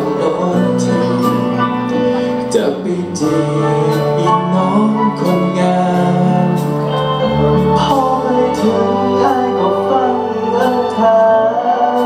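Live band playing a pop song with electric guitar and keyboard over a steady beat, and a male voice singing.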